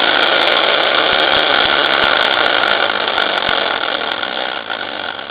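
A prize wheel spinning: a steady whirring rattle with sharp ticks that come quickly at first, then thin out as the sound fades while the wheel winds down.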